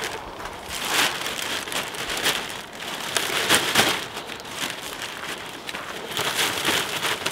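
Black plastic garbage bag rustling and crinkling as it is pulled and tucked around an engine block, with louder crinkles now and then.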